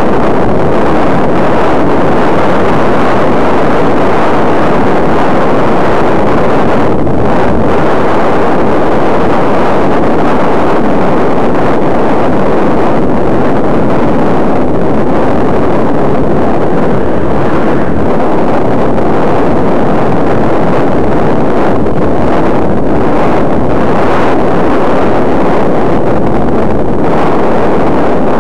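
Wind rushing over the microphone of an eyeglasses camera worn by a cyclist riding along a street: a loud, steady rush that never lets up.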